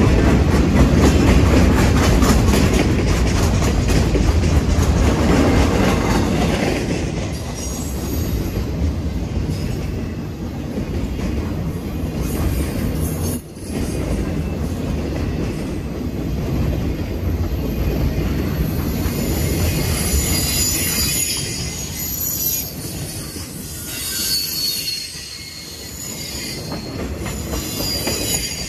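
Freight cars of a CSX maintenance-of-way rail train rolling past at close range, wheels rumbling and clattering on the rails. Steel wheel flanges squeal high and wavering against the rail from about a third of the way in, loudest in the second half.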